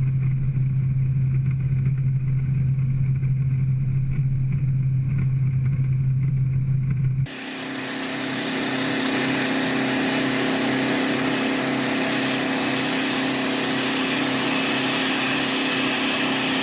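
Airliner cabin noise: a steady engine hum, then, after an abrupt change about seven seconds in, a steady rushing hiss of jet engines and airflow with a hum beneath it.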